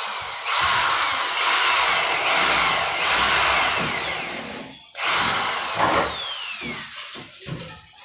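Power drill run in short repeated bursts, about five in quick succession, its motor whine falling in pitch each time; a longer burst follows about five seconds in, its whine falling further before it stops.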